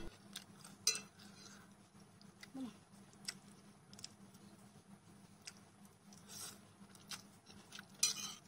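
Eating sounds: metal chopsticks tapping and clicking against a plate as they pick up instant noodles, a few scattered clicks in all. Near the end comes a louder burst as a mouthful of noodles is slurped.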